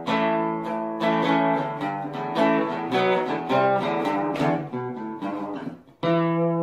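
Acoustic guitar music: a run of plucked and strummed notes, then a chord struck about six seconds in and left ringing.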